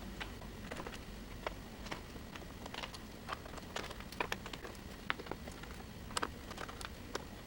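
Light, irregular clicks and taps of a small Torx T4 screwdriver and its screws as the perimeter screws are backed out of a laptop's bottom cover.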